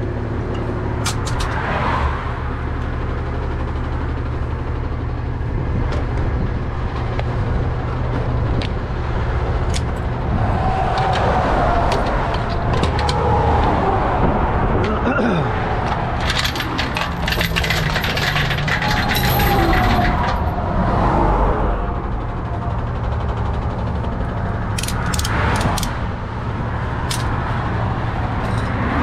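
Tow truck's engine idling steadily while steel tow chains clink and clank against the underlift as they are handled. A louder rush of passing traffic swells around the middle.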